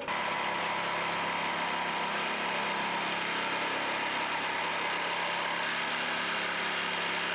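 Corded electric jigsaw running steadily, its blade sawing through a stack of two pine boards at once.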